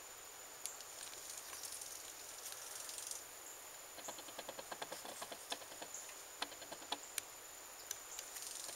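Faint handling noise as a rock specimen is turned in the hand: a scatter of small clicks and taps, thickest in the middle, over a steady high-pitched tone.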